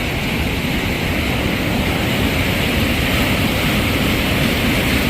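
Waterfall: water falling and splashing in a loud, steady, unbroken rush.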